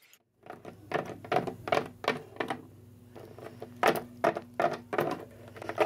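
Hard plastic toy figurines tapping and knocking against a tabletop as they are hopped along by hand: about a dozen irregular taps with a pause in the middle.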